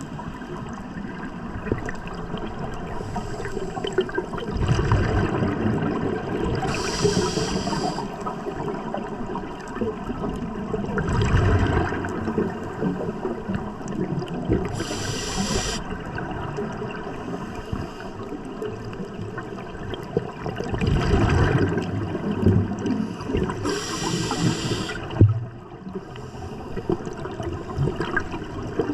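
Scuba diver breathing through a regulator underwater: a short hiss on each inhale, three times about eight seconds apart, each followed a few seconds later by a low gurgling gush of exhaled bubbles.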